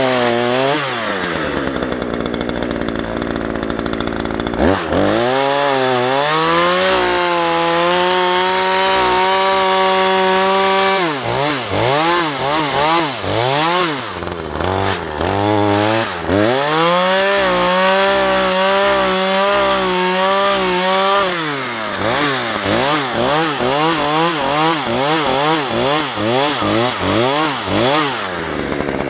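Chainsaw engine revved up and down repeatedly, held at high revs twice for about four seconds each, about five seconds in and again about seventeen seconds in.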